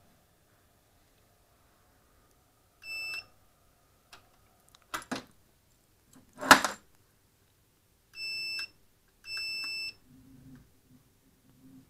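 Electric unicycle's buzzer beeping: one beep about three seconds in, then two more close together near the end as it switches on and responds again after having stopped working. Sharp knocks from handling come in between, the loudest about six and a half seconds in.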